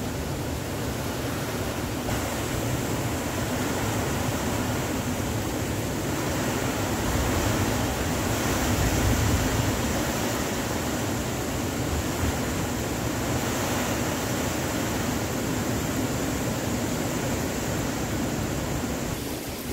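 Typhoon wind and rain rushing through trees and foliage as a steady, dense roar of noise, swelling briefly about eight to ten seconds in.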